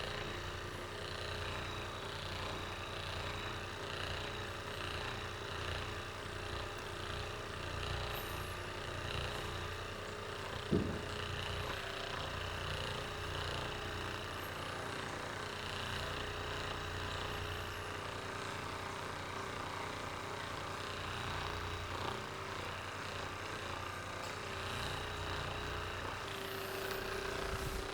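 Steady low rumble of background noise, with one short knock about eleven seconds in.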